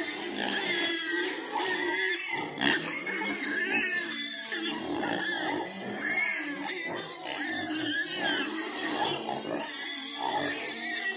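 Several pigs in pens squealing and calling over one another without a break, clamouring for feed.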